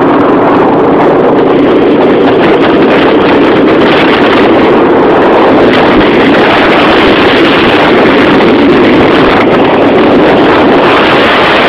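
Honda CB 500 parallel-twin motorcycle running steadily at road speed, loud, with heavy wind buffeting on the microphone.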